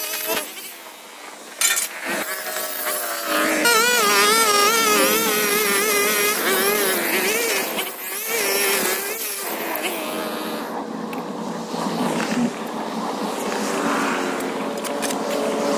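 Hyper Tough 25 cc two-stroke string trimmer running and cutting grass along a curb edge. Its engine pitch wavers up and down as it works, and it is quieter for a moment near the start.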